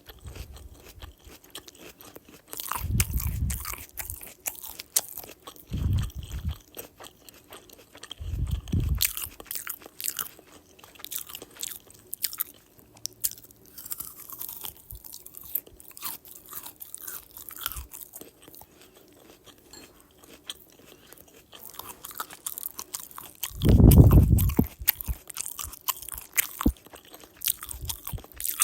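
A person biting into and chewing a crisp apple close to the microphone, with many sharp, crackling crunches. A few dull low thumps come through, the loudest near the end.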